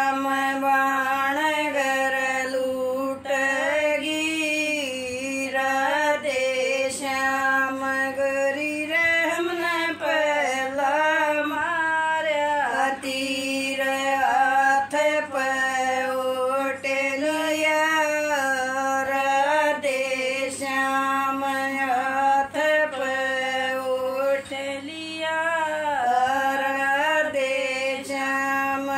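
An elderly woman singing a folk song solo and unaccompanied, in long held, wavering lines with a few brief pauses for breath. A faint steady hum lies underneath.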